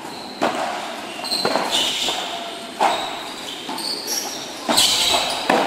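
Padel rally: a ball struck by solid paddles and bouncing off the court and walls, five sharp hits about a second apart that echo under the roof, with short high squeaks between them.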